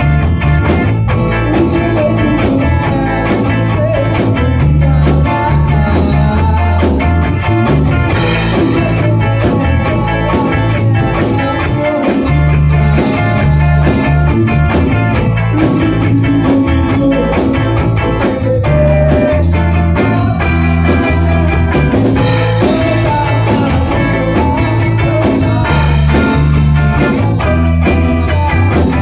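Rock band playing an instrumental passage of the song, electric guitar lines over bass and drums with a steady beat.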